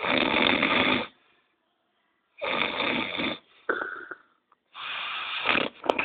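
Loud snoring: three rasping snores, each about a second long and roughly two seconds apart, with a shorter, softer breath after the second.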